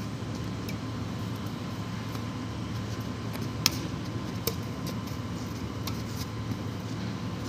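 Badminton rackets striking a shuttlecock in a rally: a string of sharp clicks about a second apart, the loudest about halfway through, over a steady low hum.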